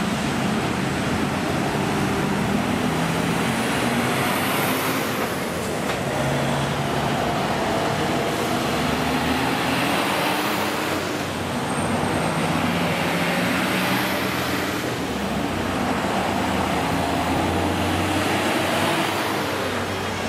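Heavy fire engines driving past with their diesel engines running, over steady road traffic noise.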